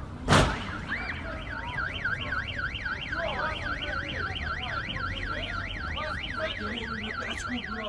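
A short, loud impact thump, then a car alarm sounding: a fast warble rising and falling about four times a second.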